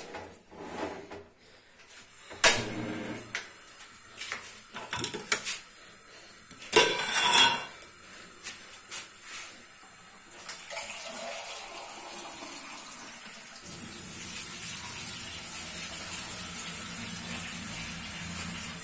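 Metal pots and an aluminium pressure cooker knocking and clattering in several sharp strikes, then a kitchen tap running steadily from about ten seconds in.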